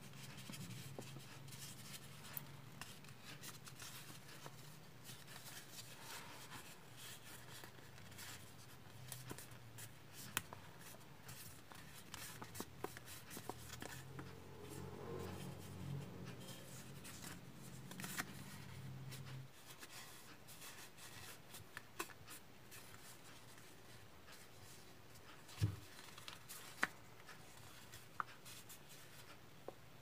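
Sheet of origami paper rustling and crackling as hands fold and crease it, with scattered sharp little clicks. A low background hum runs under it and stops about two-thirds of the way through.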